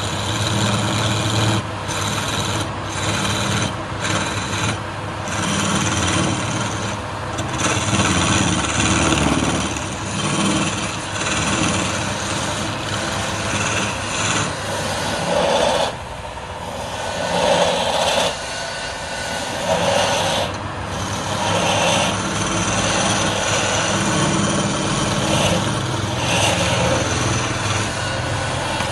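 Wood lathe motor running with a steady hum while a hand-held gouge cuts the spinning wooden stock: a continuous rough scraping of shavings being peeled off, swelling and easing as the tool is worked along the piece.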